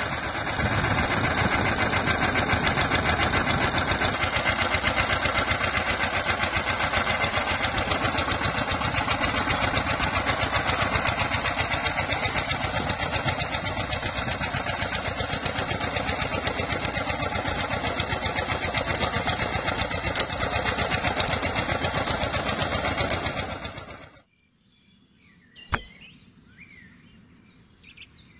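Small electric motor in a homemade toy tractor running its mock engine, a fast steady rattle. It cuts off abruptly about 24 seconds in, followed by a few faint clicks.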